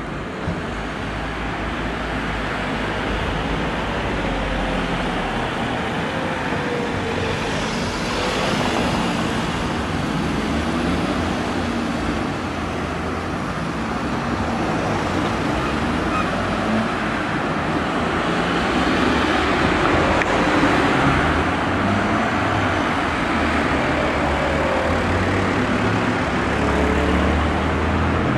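Town street traffic: cars driving past through the intersection, a steady rush of engines and tyres that swells as vehicles pass, most around 8 seconds in and again around 20 seconds in.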